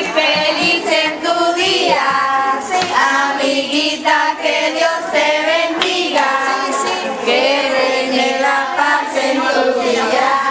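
Several young girls singing together in unison, a continuous sung melody with held notes.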